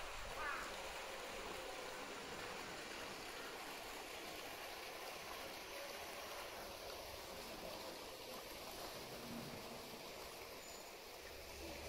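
Steady rush of running water in a polar bear's pool.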